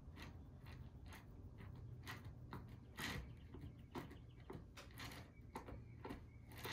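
Faint, irregular soft squishes and taps of fingers pinching a moist clay coil into the wall of a hand-built cup, over a low steady hum.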